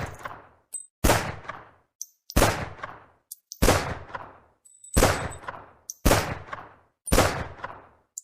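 Glock 17 9mm pistol firing six single shots about a second and a quarter apart, each sharp crack fading out before the next, with small clicks between shots.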